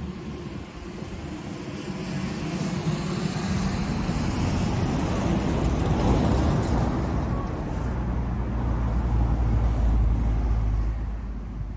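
Diesel locomotive engines running out of sight, the sound building over the first few seconds, with a steady deep engine drone settling in during the second half.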